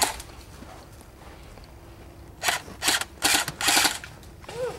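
Four crunching footsteps on dry, gravelly ground, coming a little over two a second after a quiet stretch. A short squeak rises and falls near the end.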